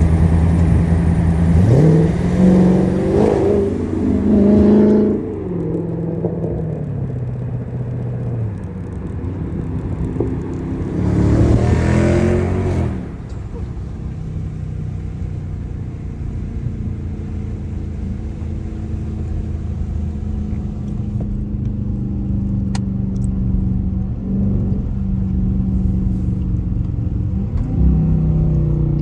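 Dodge car engine pulling hard, its pitch climbing and dropping as it runs up through the gears, about two seconds in and again about eleven seconds in. Between and after these pulls it settles to a steady cruising drone, with brief small rises near the end.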